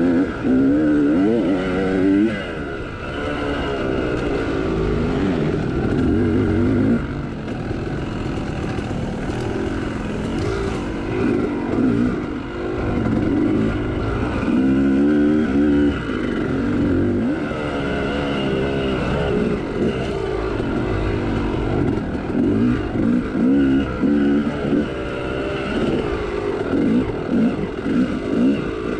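Big-bore Yamaha YZ two-stroke dirt bike engine heard from on the bike, revving hard and easing off again and again, its pitch rising and falling as it is ridden along a trail.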